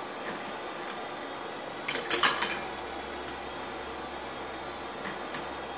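Homemade automated brass annealer at work: brass rifle cases clink and rattle as the wheel carries them along and drops them, a short cluster of metallic clicks about two seconds in and a fainter pair near the end, over a steady hiss from the torch flame.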